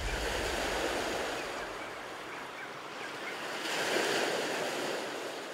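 Ocean surf washing onto a beach, a steady rush that swells again about four seconds in.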